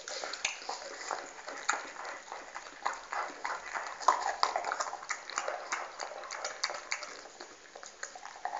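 A dog gnawing and crunching a bone: irregular crunches and clicks from its teeth on the bone, several a second, with a louder crack about four seconds in.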